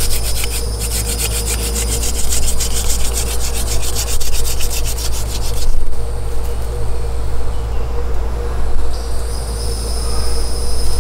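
Wooden hand-drill spindle spun back and forth between the palms in the burned-in notch of a wooden hearth board, a continuous rubbing of wood on wood. It is grinding dust into the notch with a little smoke, though the driller thinks it is not making quite enough heat for an ember.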